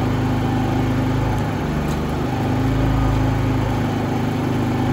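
Predator 3500 inverter generator's small single-cylinder engine running steadily with eco mode switched off, so it holds a higher, constant speed instead of throttling down to the load. The hum wavers slightly about two seconds in.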